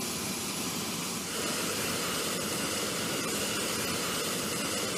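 Steady jet-engine noise of an airfield flight line, which changes and gets a little louder just over a second in.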